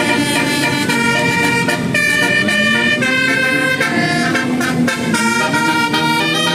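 Bus 'telolet' musical air horn, a Basuri multi-tone horn, playing a tune: several horn tones sounding together and changing note about once a second.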